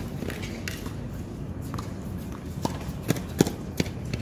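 A handful of sharp knocks on the hard tennis court, roughly 0.4 s apart, starting a little past halfway, the loudest in the middle of the run, over a steady outdoor hiss.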